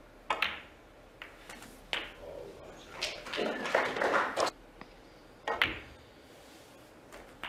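Snooker balls clicking: a few sharp, single clicks of cue on ball and ball on ball, a second or more apart, over a quiet arena. A louder, muffled noise runs for about a second and a half around the middle.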